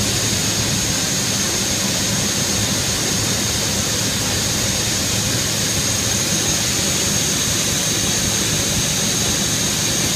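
MotionMaster 5-axis CNC router with its 10 HP spindle running at speed: a steady high whine over a constant rushing noise.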